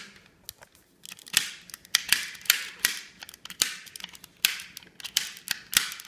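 A plastic push puzzle ball being twisted and pressed during a solve, giving an uneven run of sharp plastic clicks and clacks, about two to three a second.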